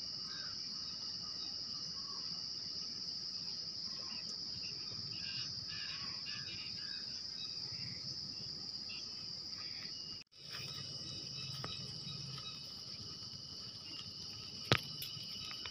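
Steady, high-pitched chirring of an insect chorus, with faint bird chirps in the first half. The sound drops out briefly about two-thirds of the way through, and there is a single sharp click near the end.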